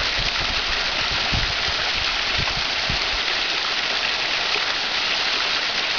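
Small waterfall pouring and splashing onto rocks close by: a steady, dense rush of water, with a few brief low thumps in the middle.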